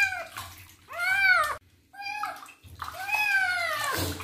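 A young kitten meowing repeatedly while being washed: about four high, arching cries, the last one the longest, with water splashing in a basin.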